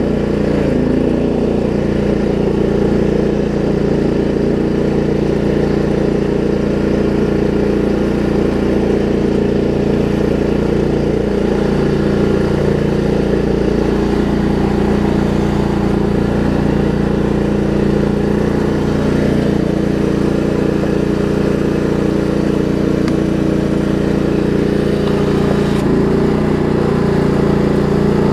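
Craftsman LT1750 riding mower engine running at a steady speed.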